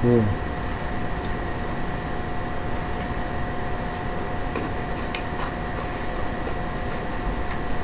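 Faint clicks of chopsticks against dishes during eating, over a steady hum with two held tones; a brief low voice sound right at the start.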